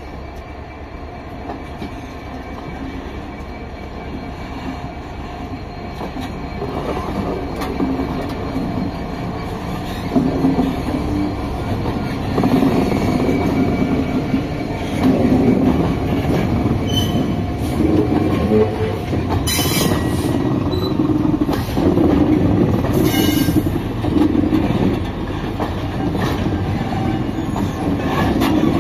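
Railhead treatment train passing, hauled by Class 66 diesel locomotives: the locomotives' EMD two-stroke diesel engines running and the tank wagons' wheels clacking and rumbling over the rails, growing louder about ten seconds in as the wagons come alongside. Twice, a few seconds apart in the second half, a brief high wheel squeal.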